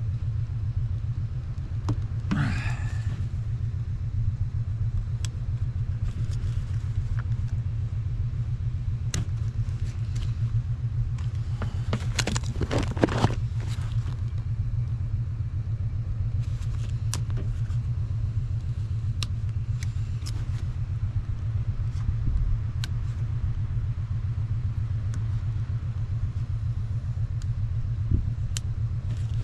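An engine running steadily, a constant low hum, with scattered clicks and knocks of hand work over it, thickest about twelve to thirteen seconds in.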